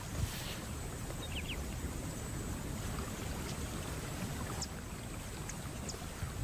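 Steady rushing outdoor ambience with a low rumble, with a few faint short high chirps about a second and a half in.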